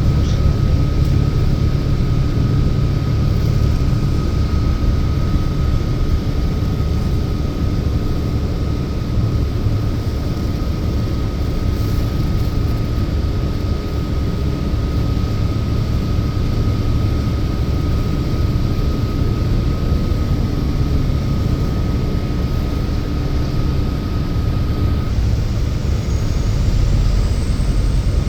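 City bus running, heard from inside the cabin: a steady low rumble of engine and road noise, with a faint steady whine that stops near the end.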